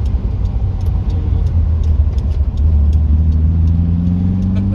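1975 Volkswagen Type 2 camper van's air-cooled flat-four engine running under way, heard from inside the cab. From about halfway its hum gets a little louder and rises steadily in pitch as the van picks up speed.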